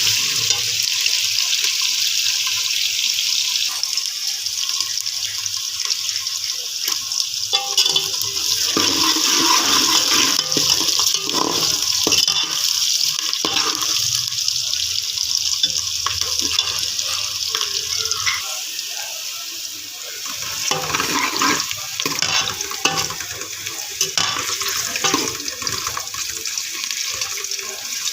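Okra frying in oil in a pan, a steady sizzle with the clicks and scrapes of a spoon stirring it.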